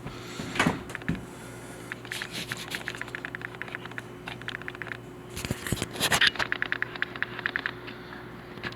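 Hands handling toilet fill-valve parts: scraping, a few light knocks and a run of rapid clicks, with a louder clatter near the end.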